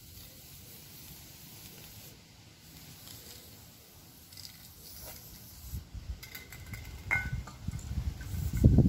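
Faint hiss of an aerosol spray-paint can, then uneven low rumbling of wind on the microphone that grows loud over the last few seconds, with a couple of light clinks partway through.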